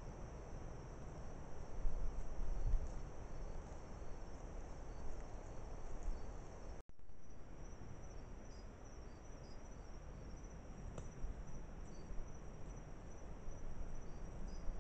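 Night insects, crickets among them, trilling steadily in a high continuous chorus. The sound drops out for an instant about seven seconds in and comes back slightly higher in pitch and more pulsing; a few low bumps are heard around two seconds in.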